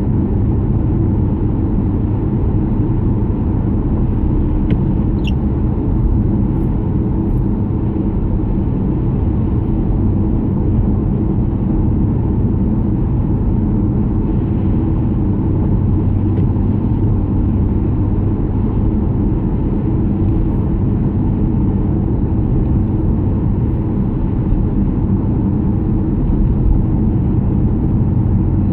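Car interior cabin noise at motorway speed on a wet road: a steady low rumble of tyres and engine.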